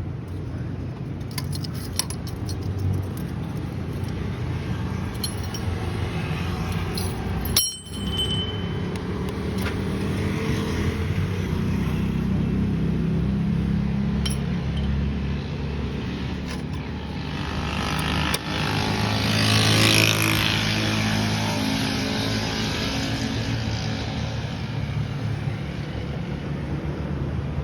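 Suzuki Alto 660cc three-cylinder engine running, with the noise of a bad clutch release bearing. The sound dips briefly about eight seconds in and grows louder around twenty seconds in.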